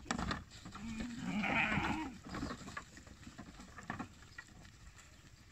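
A Kangal lamb bleats once, about a second in, a rough call lasting over a second. Hooves knock on the truck's wooden floor at the start and again a few seconds later as the lambs jump down.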